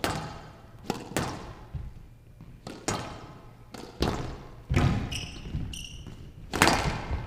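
Squash ball being struck back and forth in a rally on a glass court: a series of sharp cracks from racket strikes and the ball hitting the walls, each with a short ringing echo, with a couple of brief shoe squeaks on the court floor about five seconds in. The loudest crack comes near the end, as the rally finishes on a cross-court nick.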